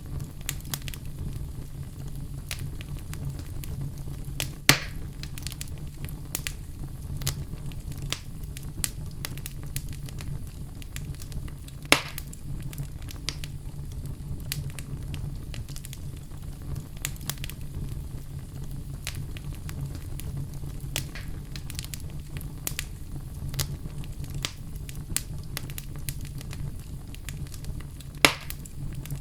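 Wood fire in a fireplace crackling, with frequent small pops over a steady low rumble. Three louder pops stand out: about five seconds in, about twelve seconds in, and near the end.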